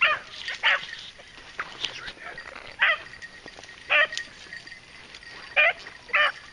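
Beagles baying on a rabbit's trail: about seven short, wavering bawls, irregularly spaced, some in quick pairs.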